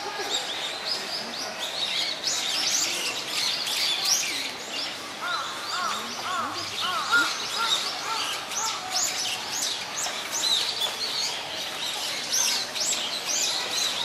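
Small songbirds chirping busily in short, high notes, several birds overlapping, with a run of lower, evenly repeated notes around the middle.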